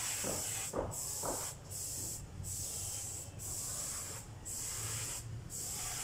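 A high hiss that comes in repeated bursts of about a second, with brief gaps between them, over a low hum. A few short, duller sounds fall in the first second or so.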